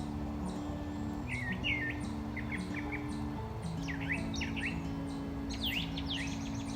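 Small birds chirping in quick, sweeping calls, in clusters through most of the stretch, over soft acoustic background music with long held low notes.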